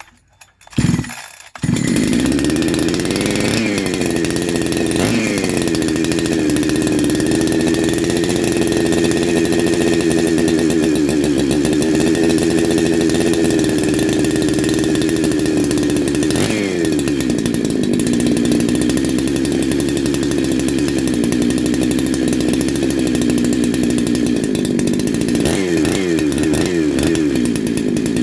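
Neo-tec NH872 chainsaw, a 372XP clone with a big-bore cylinder and twin-outlet muffler, catching about a second in on its first start, then running steadily. Its pitch rises and falls with a few brief throttle blips, with several quick blips close together near the end.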